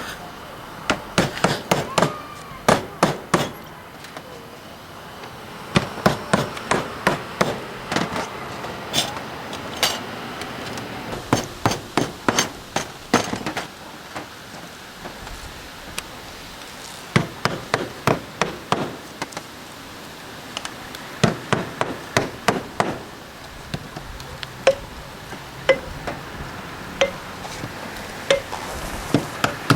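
Hammer striking copper roofing pans, in quick runs of blows with short pauses between. Some strikes leave a brief metallic ring.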